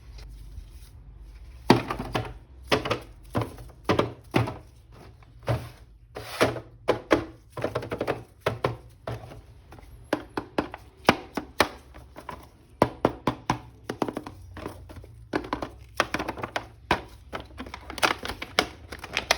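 Hands unboxing and handling a plastic action figure and its packaging: an irregular run of sharp clicks and knocks, several a second, with short pauses.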